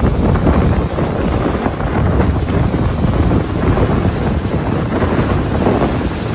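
Waterfall rushing steadily, with wind buffeting the microphone.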